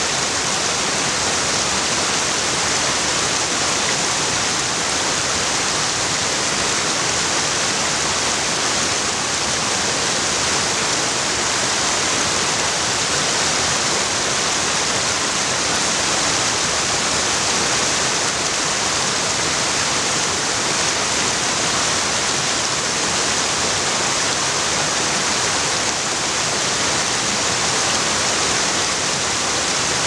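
Small waterfall and rapids: water pouring over rock ledges and rushing over a stony streambed, a steady, even rush of water.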